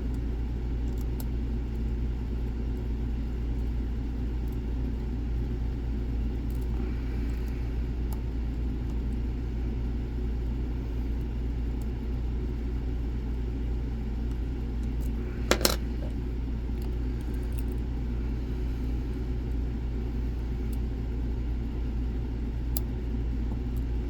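Lock picks working the pins of a Dom IX Saturn lock: faint scattered metallic ticks over a steady low hum, with one sharper metal clink about two-thirds of the way through.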